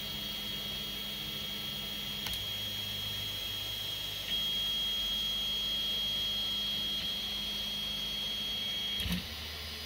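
PowerBelt3D Zero belt 3D printer running a print, its stepper motors giving a steady high whine over a low hum. The whine gets louder about four seconds in, with a few small clicks as the moves change, and stops with a click about nine seconds in.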